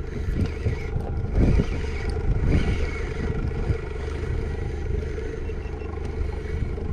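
Outboard motor of a small open fishing boat running steadily at trolling speed.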